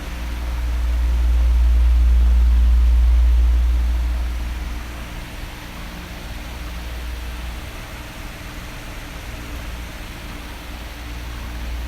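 Electric fan running, a steady rush of air with a faint hum. Its low rumble swells about a second in, fades after about four seconds and builds again near the end, as the oscillating fan sweeps toward and away.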